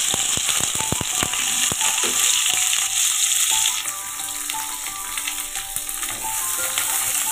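Chopped vegetables sizzling in hot oil in a kadai, loudest for the first few seconds after they go in and easing after about four seconds. A few sharp taps and clicks in the first two seconds.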